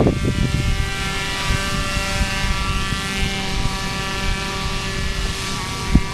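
A paramotor's engine and propeller running steadily overhead in flight, a hum with many evenly spaced tones, with wind rumbling on the microphone.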